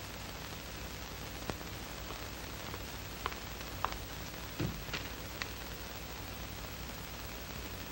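Steady hiss of an old film soundtrack, with a few faint clicks and a soft low thump around the middle.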